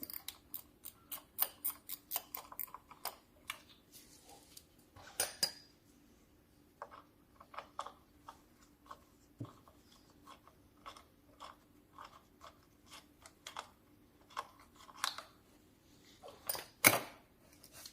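A run of irregular clicks and light knocks, a few of them louder, over a faint steady hum.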